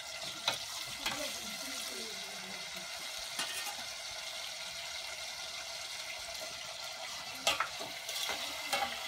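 Steady sizzling hiss of food frying in hot oil, with a few light knocks now and then.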